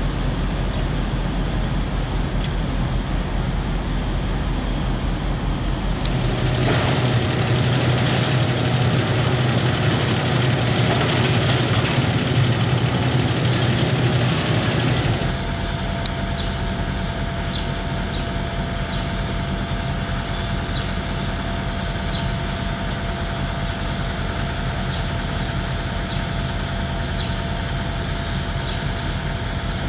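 Diesel engine of a Hitachi 670 high-reach demolition excavator running steadily. It is louder and fuller from about six to fifteen seconds in, then settles back to a steady run with a thin steady whine and a few faint clanks.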